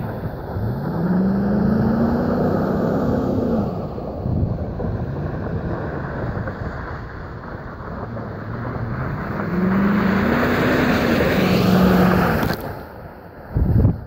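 Pickup truck engine revving up and easing off twice as the truck drives across snow, over a steady rushing noise. A brief low thump comes near the end.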